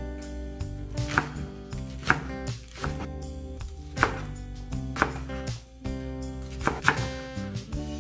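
Kitchen knife chopping green onion on a wooden cutting board: separate sharp cuts, roughly one a second, over background music.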